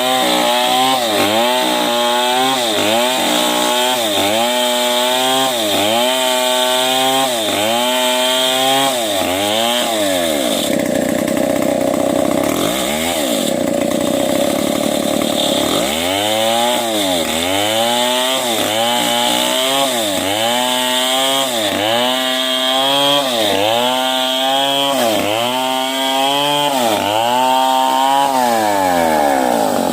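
Two-stroke chainsaw ripping a medang log lengthwise, the engine pitch rising and falling about once a second as the chain bites under load and recovers. For a few seconds in the middle it runs at a steadier high pitch with one brief dip, then the rhythmic loading resumes.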